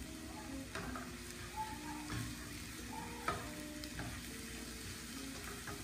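Minced garlic sizzling in olive oil in a nonstick pan, stirred with a wooden spatula that gives a few light knocks and scrapes against the pan.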